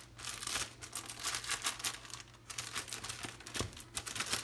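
Plastic flour bag crinkling irregularly as hands grip and shift it while a spoon is worked inside it.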